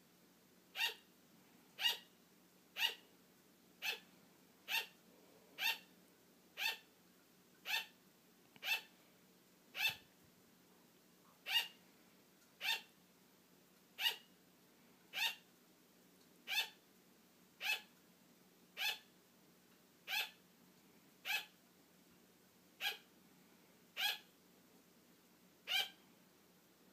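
Sugar glider barking: short, sharp yaps repeated steadily a little under once a second. This is its call for attention.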